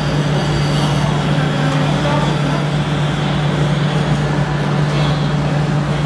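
Steady low hum under a constant wash of noise and indistinct background voices, the ambience of a busy hall.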